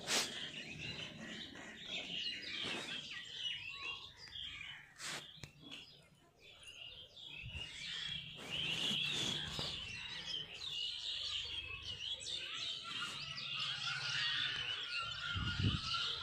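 Small birds chirping steadily, the chirping growing busier about halfway through. A few sharp clicks of fingernails pinching lice in the hair can also be heard.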